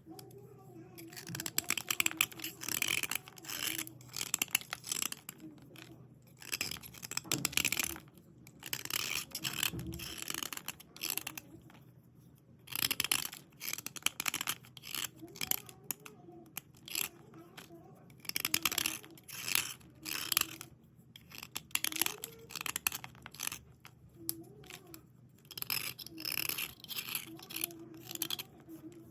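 White slate pencils being scrubbed dry by hand, with gritty rubbing strokes coming in bursts and short pauses between them.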